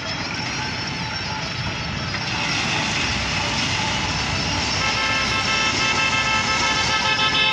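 Massey Ferguson 385 tractor's diesel engine running steadily under load while its front blade pushes crushed stone. About five seconds in, a steady high tone with several pitches, horn-like or whining, joins the engine.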